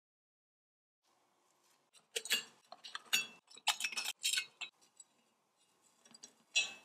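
Thin tin-plate parts of an old toy airplane clinking and scraping as they are pried and pulled apart by hand: a quick run of sharp metallic clinks a couple of seconds in, then one more near the end.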